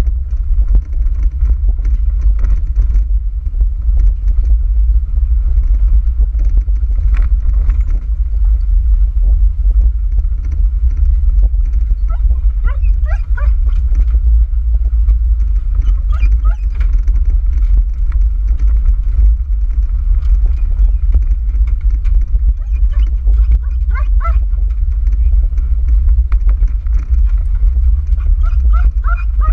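2010 Jeep Wrangler JK Sport driving, a steady low rumble of road and wind. Over it an excited dog whines briefly several times in the second half.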